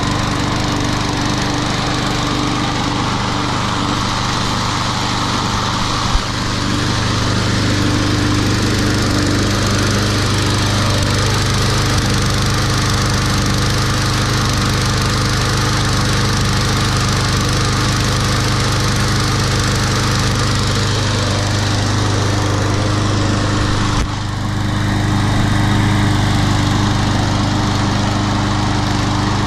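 Troy-Bilt TB230 push mower's Briggs & Stratton engine running steadily. Two sharp clicks, about six seconds in and again about five seconds before the end, each with an abrupt shift in the sound.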